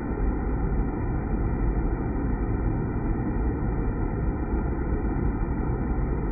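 Steady, low rumbling roar of water splashing into the pool of feedwater inside a deaerator tank.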